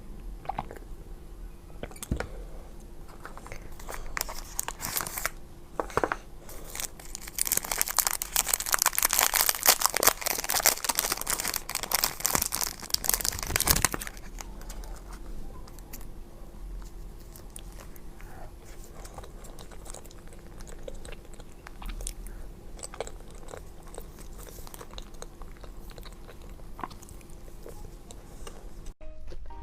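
Close-up eating sounds of crunchy chocolate dessert: bites and chewing, with a loud stretch of dense crunching in the middle and scattered smaller crunches either side.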